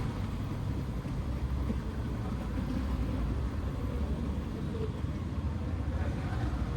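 Steady low rumble of motor vehicles, with road noise.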